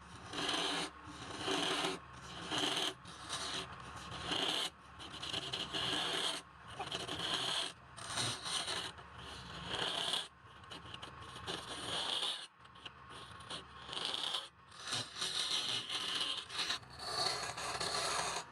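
Tool scraping wood in repeated rasping strokes, about one a second, typical of a woodturning tool cutting a piece on a lathe.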